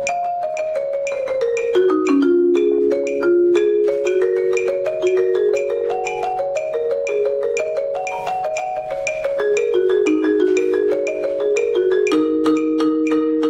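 Marimba played with yarn mallets in a solo: fast runs of notes that sweep down and back up across the wooden bars. Near the end it settles into a rolled two-note chord.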